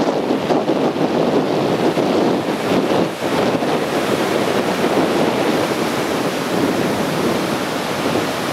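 Sea surf breaking and washing over a rocky reef shoreline, a steady rushing of water, with wind on the microphone.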